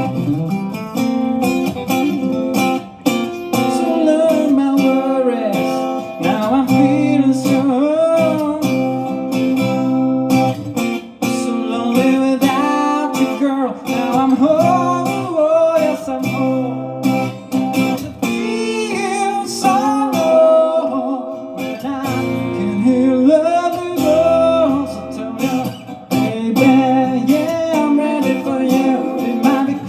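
Live song performance: acoustic guitar strummed in steady chords, with a voice singing a gliding melody over it.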